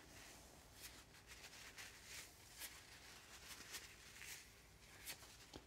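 Faint, soft rubbing of a blue paper shop towel wiped in a series of short strokes along the back of a 1-inch Narex Richter chisel's steel blade, cleaning it.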